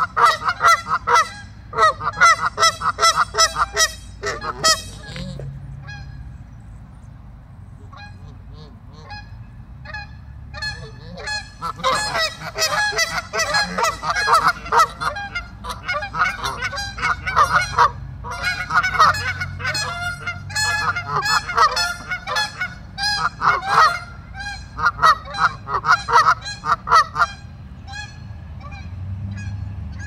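A flock of Canada geese honking in quick, repeated calls. The calling thins to scattered honks for several seconds after about five seconds in, then turns dense again from about twelve seconds until shortly before the end.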